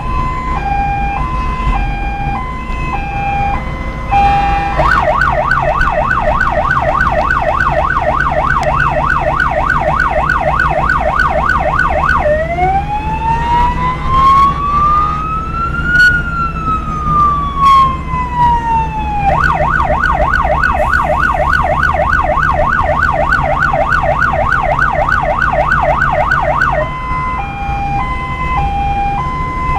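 Electronic emergency-vehicle siren cycling through its modes: a two-tone hi-lo alternating about once a second, then a fast yelp of about four warbles a second, one slow wail rising and falling, the yelp again, and back to the hi-lo a few seconds before the end. Underneath, a steady vehicle engine and road rumble.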